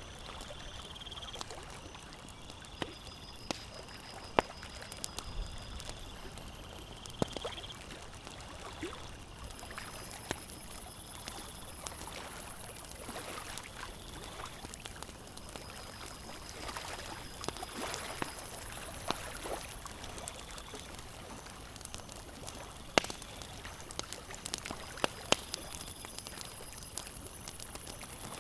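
Campfire crackling, with sharp pops scattered irregularly over a steady wash of lake water lapping.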